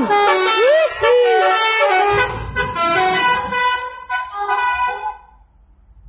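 Tour bus telolet horn playing a multi-tone melody, first with bending, sliding notes, then a quick run of stepped notes, stopping about five seconds in. A low engine rumble rises partway through as the bus pulls away.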